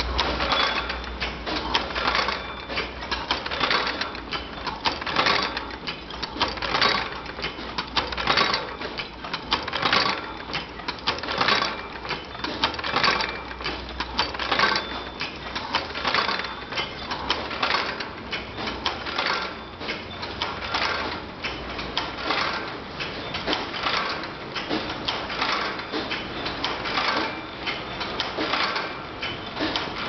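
Automatic bag buckle making machine (a wire-bending machine) running continuously, its feed, cutter and forming slides clacking in a steady, even rhythm of roughly one stroke a second, metal striking metal. A low motor hum runs underneath.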